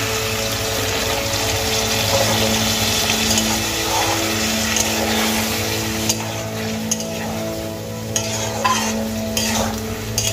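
Water hitting hot oil and masala in a metal kadai sizzles steadily as a spatula stirs and turns the pointed gourd and potato pieces. From about five seconds in there are several sharp scrapes and knocks of the spatula against the pan.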